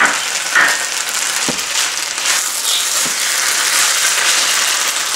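Chicken and vegetables sizzling in a frying pan as they are stirred with a wooden spatula, with a few knocks and scrapes of the spatula against the pan.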